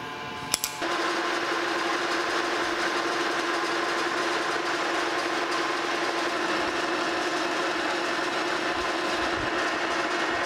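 A switch clicks about half a second in, then a metal lathe starts and runs steadily with a constant tone, taking a light finishing cut to bring a stud down to 5/8 inch diameter.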